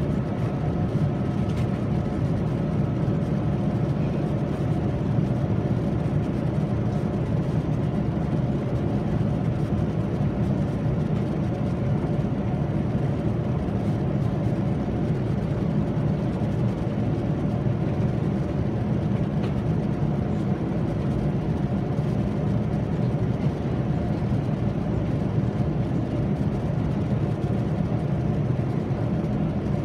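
Steady cabin noise inside a Boeing 787-9 airliner in flight: an even low rush of airflow and engine drone, with a few faint steady hum tones above it.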